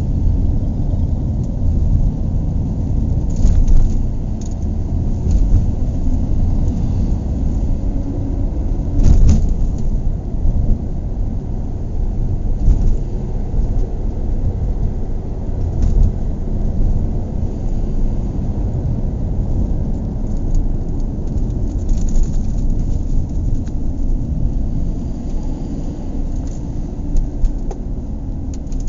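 Car cabin interior while driving: a steady low road and engine rumble, with occasional short bumps and rattles from the road surface.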